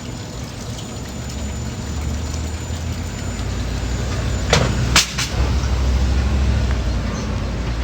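A steady low rumble that slowly grows, with three sharp metallic knocks in quick succession about halfway through, from work on the washing machine's sheet-metal cabinet.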